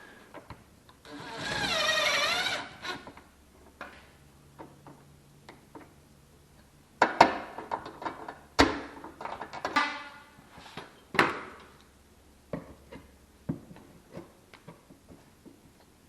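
A power drill runs for about a second and a half, its whine wavering in pitch as it works, followed later by several sharp knocks and clunks of hardware being handled.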